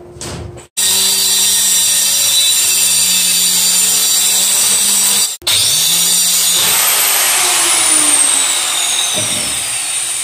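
Electric woodworking power tool running loud and steady. It cuts off abruptly about five seconds in and starts again, and in the second run a high whine falls steadily in pitch.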